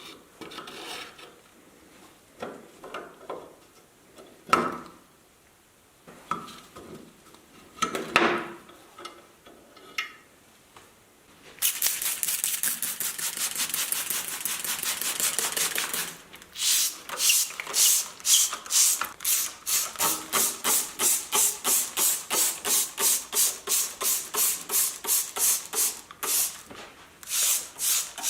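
A few handling knocks and clicks, then about twelve seconds in a hand rubbing or scrubbing starts on a calculator part, fast at first and then settling into regular back-and-forth strokes about two a second.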